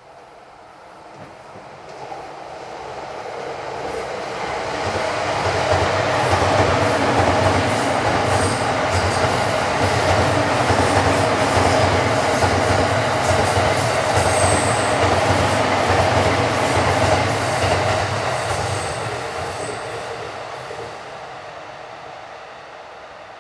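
JR East Series E231-1000 electric commuter train passing: the sound builds as it approaches, holds loud for about twelve seconds with the wheels clicking over the rail joints and a few brief high squeals, then fades as it moves away.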